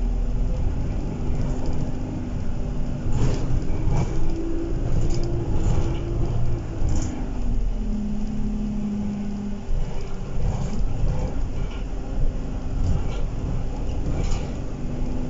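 Alexander Dennis Enviro 200 single-deck bus heard from inside the passenger saloon: a steady diesel engine and road rumble whose note rises and falls as the bus drives on, with short knocks and rattles from the body and fittings every few seconds.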